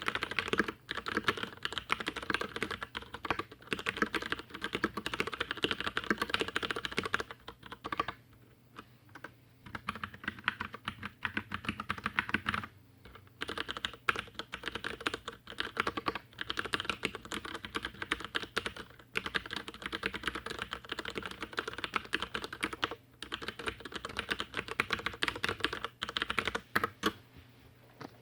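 Typing on a stock Leopold FC750R tenkeyless mechanical keyboard with brown (tactile) Cherry MX switches: a fast, continuous run of keystroke clicks with short pauses, the longest about eight seconds in.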